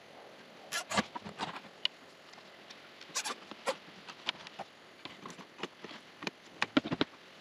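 Irregular light taps, knocks and scrapes from hands and fittings handled against a black corrugated plastic culvert pipe, with the strongest knocks about a second in and near the end.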